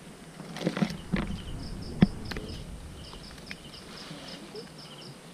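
Night insects chirping in rapid repeated trains, steady throughout. Over them come a few knocks and scrapes of someone scrambling over rock, the sharpest about two seconds in.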